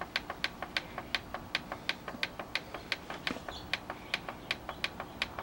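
Plastic channel button on a digital converter box being pressed over and over to step through channels: a fast run of sharp clicks, about five a second, some louder and some fainter.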